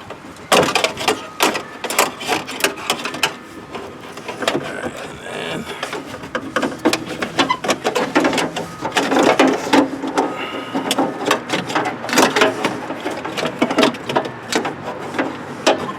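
Irregular clicking, knocking and rattling of metal and plastic parts being handled and fitted inside a car door, the lock rods and cables being routed back into place.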